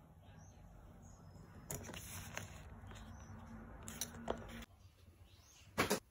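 Light clicks and knocks from handling a hard-shell suitcase, a few scattered ones and then a louder knock near the end.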